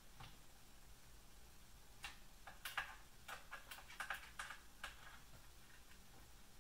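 Faint, sharp clicks and taps of small hardware and metal parts being handled while a 3018 Pro CNC router kit's build platform is assembled: one click near the start, then about a dozen in quick succession in the middle.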